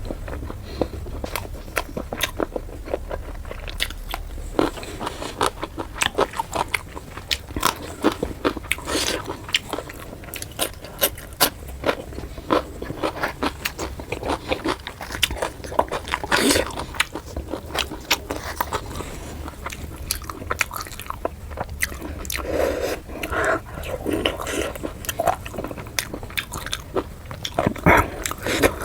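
Close-miked eating sounds: biting, chewing and small crunches of puri with chicken curry, many short irregular clicks and smacks.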